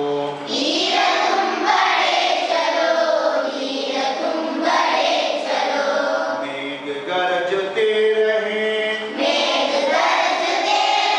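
A class of schoolchildren singing together in chorus: many young voices holding sung lines, with short breaks between phrases.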